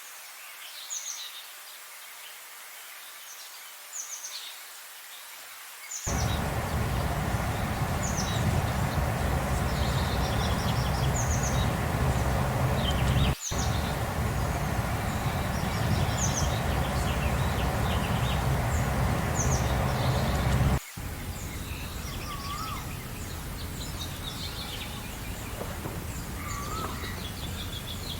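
Songbirds chirping in short high calls throughout. About six seconds in, a loud steady low rumbling noise starts abruptly under them and drops to a lower level after two sudden cuts, the second about 21 seconds in.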